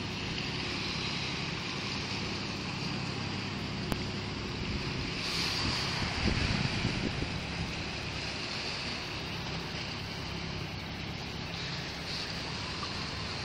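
Riverside ambience: a steady low hum of boat engines on the river under a wash of wind and small waves on the shingle. A gust buffets the microphone about six seconds in.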